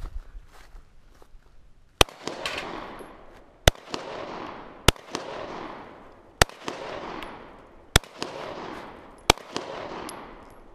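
A handgun fired six times at a slow, steady pace, roughly one shot every second and a half. Each sharp report is followed by a long echo that rolls off and fades before the next shot.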